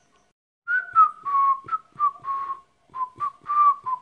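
A person whistling a short tune by mouth, breathy, in a run of short notes that starts under a second in.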